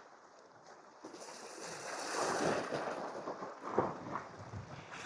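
Sea waves washing against shore rocks, swelling and ebbing in surges, with wind on the microphone. A sharp tap sounds about four seconds in.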